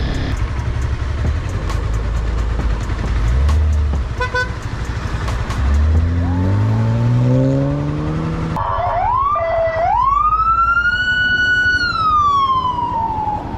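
A Honda CBR300R's single-cylinder engine runs on the move, then revs up with rising pitch through about the middle. Past halfway a police siren takes over: a few quick whoops, then a wail that rises, holds high and falls away.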